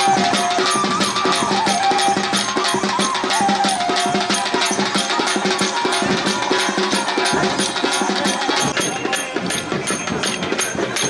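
Traditional Indian folk music with fast, steady drumming, and a wavering melody over it during the first few seconds.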